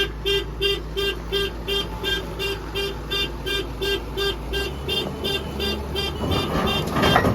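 Electronic warning beeper on heavy machinery, sounding short same-pitched beeps about three times a second over a running diesel engine. The beeps fade near the end as the engine noise grows.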